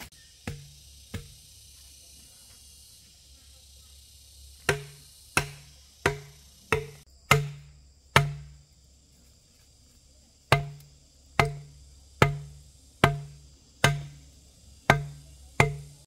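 Bamboo stake being driven into the ground by blows of a machete on its top: sharp knocks, each with a short hollow ring, about three every two seconds. They start about five seconds in, with a pause of about two seconds midway.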